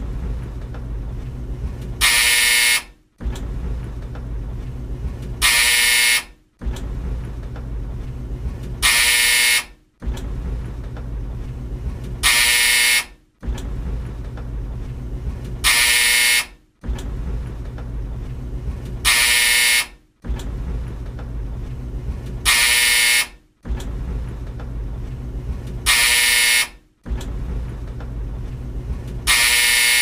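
Old tumble dryer running with a low, steady rumble, broken about every three and a half seconds by its loud buzzer sounding for under a second. Each buzz is followed by a very short drop-out, and the pattern repeats about nine times.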